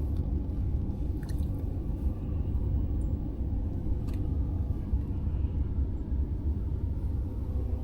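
Car engine idling: a steady low rumble, with a couple of faint clicks.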